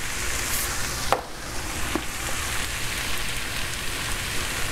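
Sliced mushrooms and onions sizzling steadily in a hot frying pan, with two light clicks.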